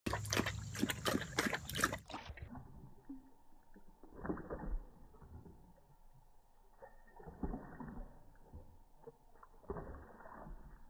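A dog lapping water from a stainless steel bowl, with quick splashing laps at about five a second. After about two seconds the laps turn sparser and muffled.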